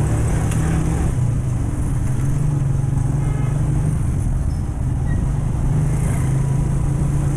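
Small motorcycle engine running steadily while riding at low speed, with street traffic noise around it.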